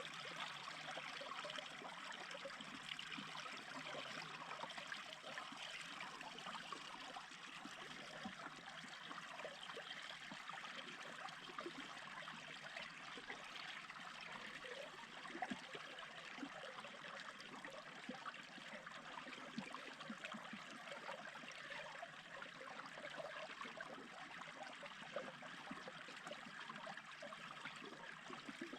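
A small brook babbling and trickling steadily.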